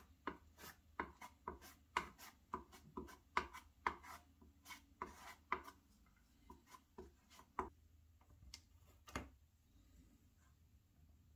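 A small hand spreader scraping and tapping as it works heavy-duty construction adhesive onto a layout's sub-roadbed: short, irregular strokes about two a second that thin out after about eight seconds.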